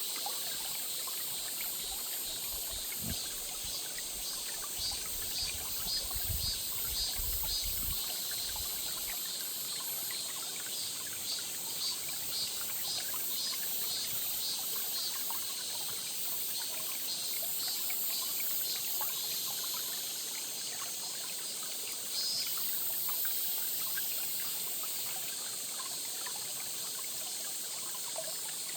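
A stream trickling and burbling steadily, with a high insect drone over it. There are some low rumbling bumps between about three and eight seconds in.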